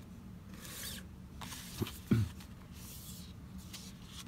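Card digibook packaging being handled and unfolded, paper surfaces rubbing and sliding under the hands, with two short knocks about two seconds in, the second the louder.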